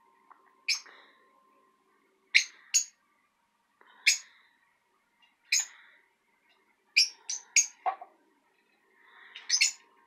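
Lovebirds giving short, sharp, high-pitched chirps, singly or in quick runs of two to four, every second or two.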